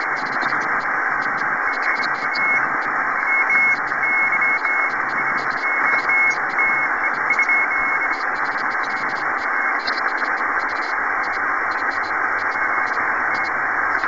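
Shortwave transceiver tuned to 21.009 MHz in the 15 m amateur band, giving a steady hiss of band noise through the receiver's narrow audio passband. A faint high-pitched Morse code tone keys dots and dashes from about two seconds in until about eight seconds in.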